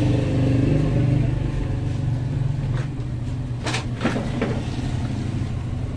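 Steady low mechanical drone, like an engine running, with two sharp clicks a little past halfway.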